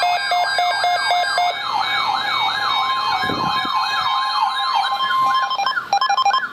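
Electronic siren yelping, its pitch sweeping up and down about three times a second, layered with pulsing electronic beeps. Near the end it breaks into rapid chopped beeping tones.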